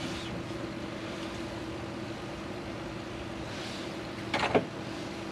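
A steady mechanical hum with a constant low tone, and a short, louder sound a little past four seconds in.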